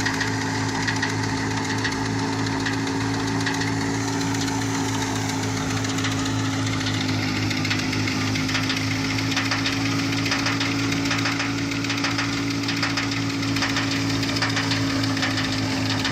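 Engine-driven wheat threshing machine running steadily, its engine holding a constant speed with a low, even hum and rattle.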